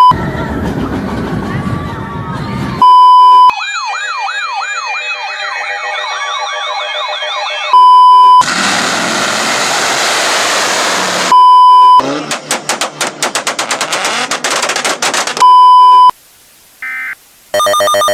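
A montage of short sound clips, each cut off by a loud steady beep at about 1 kHz, five beeps in all. Between the beeps come a noisy clip, a wailing siren that rises and falls over and over, a burst of hiss and a rapid run of clicks. Near the end, after a short quiet gap, a steady buzzy tone begins.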